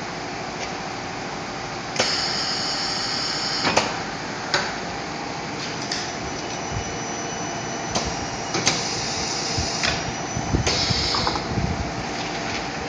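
Pneumatic cylinders of an automated filter welding machine cycling: sharp clacks as they stroke, with bursts of hissing air, over a steady machine hum.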